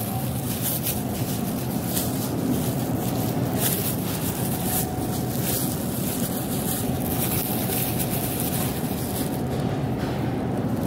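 A steady low rumbling noise, with scattered light clicks and rustles.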